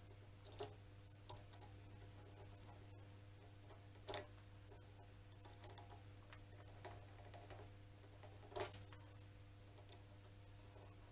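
Faint, scattered clicks and taps of a screwdriver working a hose clip on a motorcycle fuel filter hose, the loudest about four and eight and a half seconds in, over a steady low hum.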